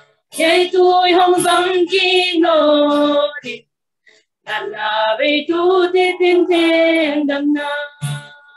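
Two women singing a hymn together without accompaniment, in two long phrases with a short pause for breath between them.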